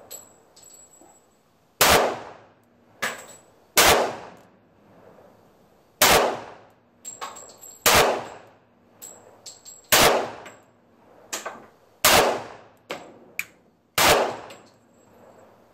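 Colt 1911 pistol in .45 ACP in slow aimed fire: seven single shots about two seconds apart, each a sharp report that dies away over about half a second. Fainter sharp clicks and clinks come between the shots.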